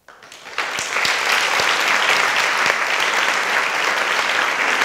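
A large seated group applauding. The clapping starts just after the beginning and swells to full, steady applause within about a second.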